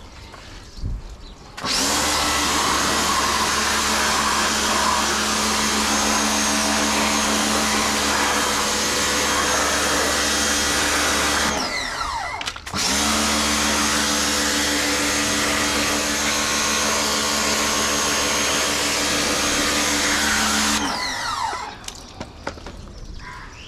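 Ingco 1400W electric pressure washer running with a steady motor hum and the hiss of its water jet, starting about two seconds in. Near the middle the motor winds down and stops for about a second, then starts up again and runs until it winds down near the end.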